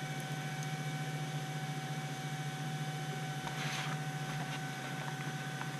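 Steady electrical hum with a thin high whine, with a brief soft rustle a little past halfway as hands handle the foam airframe.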